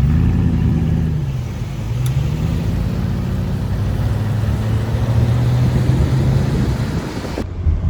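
Car engine running as the vehicle drives, its pitch dipping in the first second and then climbing slowly as the car speeds up, with road and wind noise underneath.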